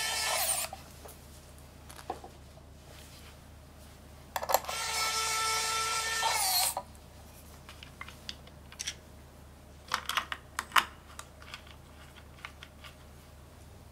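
Small electric screwdriver driving screws into a keyboard case: a steady motor whine that stops just under a second in, and a second run of about two seconds starting near 4.5 s. A few light clicks follow around 10 s.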